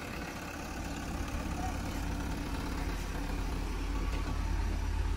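JCB 3DX Eco backhoe loader's diesel engine running with a steady low note, growing gradually louder as the machine works.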